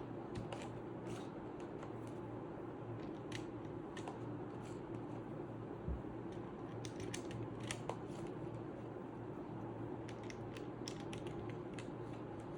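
Plastic keycaps being handled and pressed onto a mechanical keyboard's switches: irregular light clicks and snaps, some in quick runs, over a steady low hum.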